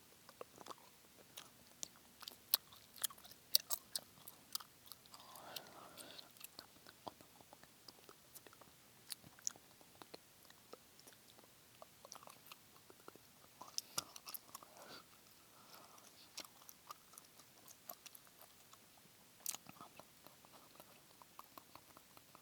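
Close-up chewing of gum, with wet clicks and smacks of the mouth at an irregular pace and a few soft breathy mouth sounds in between.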